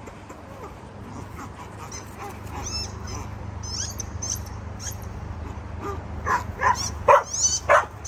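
Dogs barking several times in quick succession near the end, the loudest sounds. Before and between the barks come high, gliding squeaks from a rubber squeaky dog toy held up to tease the dogs before a throw.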